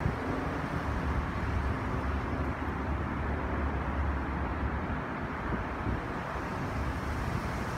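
Steady low engine rumble of an airplane climbing overhead just after takeoff. The deepest part of the rumble eases off about five seconds in.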